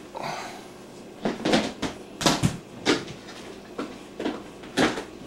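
Hard plastic tackle containers being moved and set down on a wooden table: a string of irregular knocks and clatters, about eight of them, starting about a second in.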